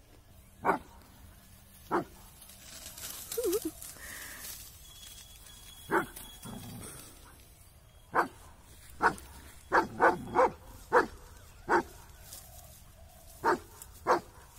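A dog barking about a dozen times in short single barks, spaced out at first and coming quicker around two-thirds of the way through.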